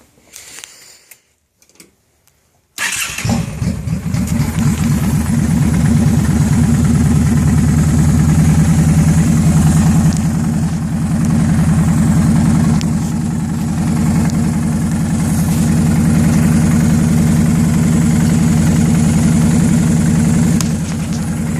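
An engine starts up abruptly about three seconds in, then idles steadily with its level wavering a little, the sound the owner is checking for a suspected vacuum leak.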